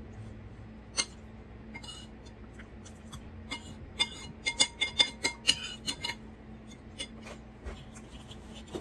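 Metal spoon clinking and scraping against a ceramic bowl: a single clink about a second in, a quick run of clinks in the middle, then a few more toward the end.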